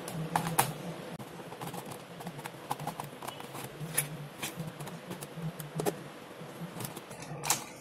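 Screwdriver backing out the small screws of a plastic mosquito-racket handle, with the case being handled: scattered light clicks and ticks, irregularly spaced, with a sharper click near the end.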